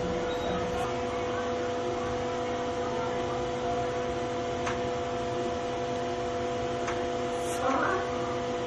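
Steady hum of several even tones over a noisy background, with two faint clicks a couple of seconds apart and a brief voice near the end.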